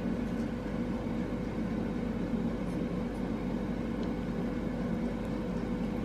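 Steady low mechanical hum with a constant tone, room tone from a running machine, with a few faint ticks.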